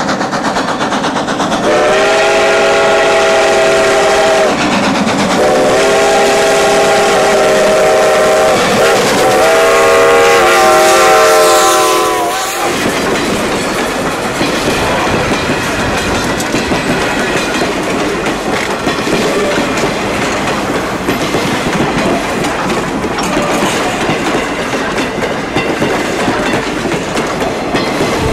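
Steam locomotive's chime whistle blown in three long blasts, several notes sounding together, the last one cut off sharply. Then a train of passenger coaches rolls past close by, with the rumble and clickety-clack of wheels on the rails.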